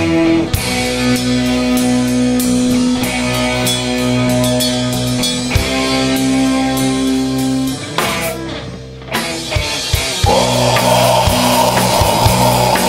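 Live rock band playing with electric guitar and drum kit over held notes. About eight seconds in the music thins out for a moment. From about ten seconds it comes back as a dense, loud wash.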